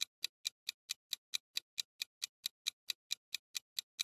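Countdown timer sound effect: an even clock ticking, about four to five ticks a second.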